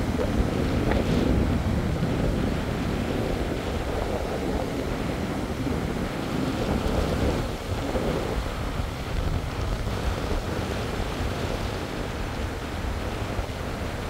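Strong wind buffeting the microphone with a low rumble, over the steady wash of surf breaking on a sandy beach.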